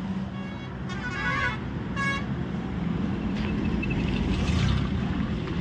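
Steady low engine rumble of vehicles on a highway, with a couple of short horn toots in the first two seconds.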